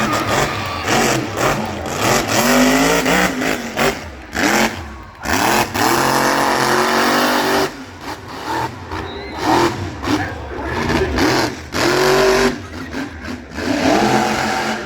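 Monster truck engine revving hard, its pitch rising and falling again and again with sharp throttle cuts.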